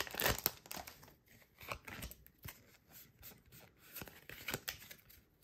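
Foil Pokémon booster pack wrapper crinkling as it is pulled open at the start, then the trading cards sliding out and being handled: a scatter of faint, light clicks and rustles.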